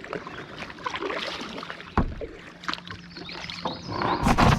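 Kayak paddling: paddle strokes dipping in the water with small knocks against the hull, a sharp knock about two seconds in, and a loud rushing noise near the end.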